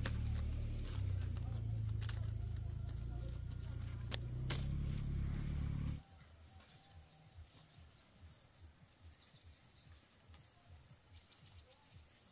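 Insects chirping in a fast, even pulsing rhythm, over a low rumble with two sharp clicks that cuts off suddenly about six seconds in.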